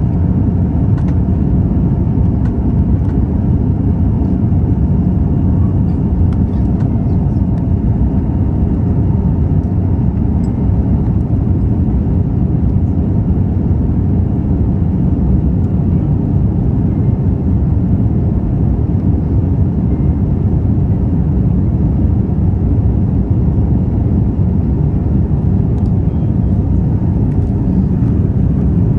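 Jet airliner cabin noise after takeoff: a steady, deep rush of engine and airflow noise heard inside the passenger cabin, unchanging throughout.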